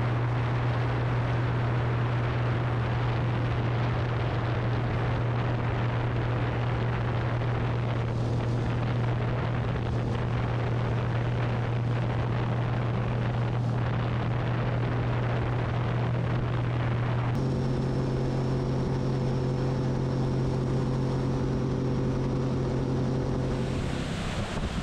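Bass boat outboard motor running at speed across a lake, a steady low drone with wind on the microphone and rushing water; the engine note changes about two-thirds of the way through and eases off near the end as the boat slows.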